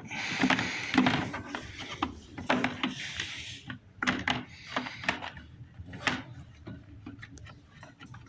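Irregular clicks, knocks and rubbing from parts being handled by hand.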